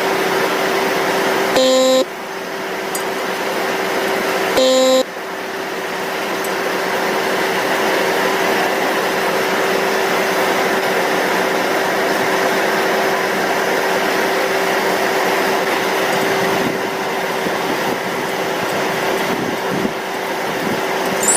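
Electric arc welding on a square pipe joint: a steady loud hiss and crackle of the arc with a constant hum under it. Twice, about 2 and 5 seconds in, a short pitched horn-like tone sounds over it.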